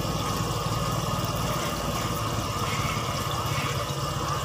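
A small engine running steadily at idle, a low even hum.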